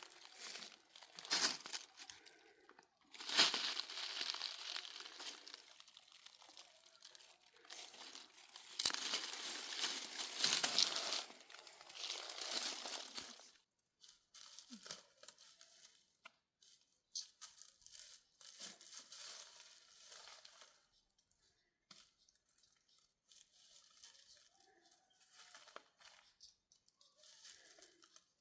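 Crinkling, rustling noise in irregular bursts, loudest and densest in the first half, then fainter scattered rustles.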